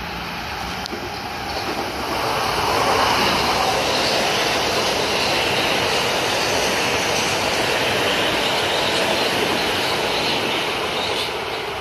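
Metro-North M8 electric commuter train passing at speed on wet track: a rush of wheel and rail noise swells about two seconds in, holds steady as the cars go by, and eases off near the end.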